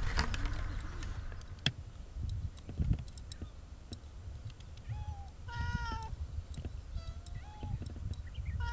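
Domestic cats meowing, several short meows in the second half, as they beg for fish. A couple of sharp clicks sound in the first few seconds.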